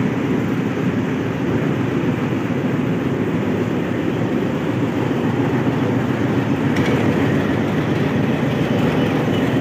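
Pakistan Railways HBU-20 diesel-electric locomotive idling, heard from close alongside: a steady, even engine sound with no change in speed.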